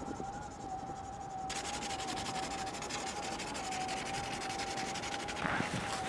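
Red marker scratching and rubbing over a sheet of cardboard, over a steady high-pitched whine. Near the end, boots crunch in snow.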